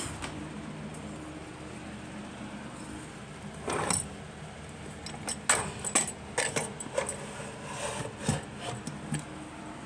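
Handling noise: a rustle about four seconds in, then a run of sharp clicks and rattles over a low background hum.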